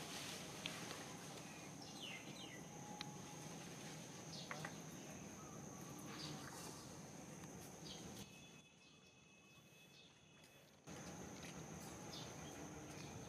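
Steady high-pitched insect trill over quiet outdoor ambience, with scattered faint clicks and a few brief chirps. The trill drops away for a couple of seconds past the middle, then returns.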